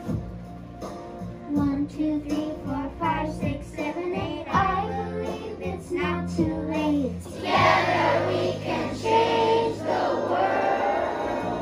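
A children's choir of fourth graders singing together over instrumental accompaniment, the voices loudest and held on longer notes in the second half.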